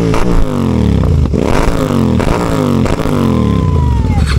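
Royal Enfield Continental GT 650's 648 cc parallel-twin, fitted with a loud aftermarket exhaust, revved again and again at a standstill. The note rises and falls about once a second, with sharp pops from the exhaust as the revs drop.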